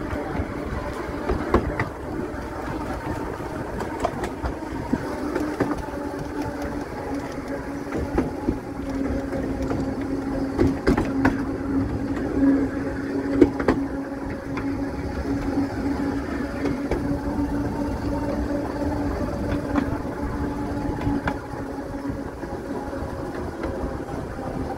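Seaton Tramway narrow-gauge electric tram running along the track, heard from on board: a steady hum from the running gear, with scattered sharp clicks of the wheels over the rails.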